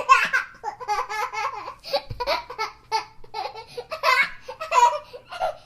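A baby laughing in a long run of short, high-pitched bursts of laughter that stop just before the end.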